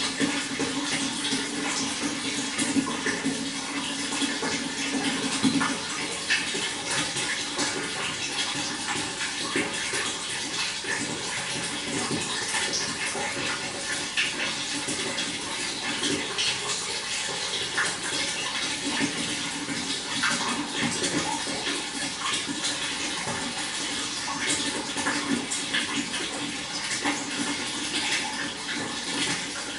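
Running water splashing and trickling steadily, with many small drips and plinks.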